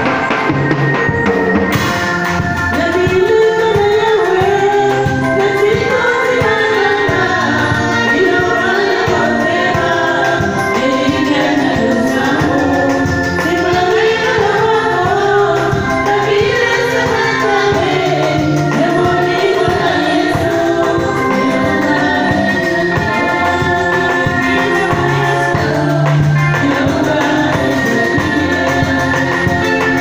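Women's voices singing a gospel song together into microphones, over a steady electronic keyboard accompaniment with a light drum beat.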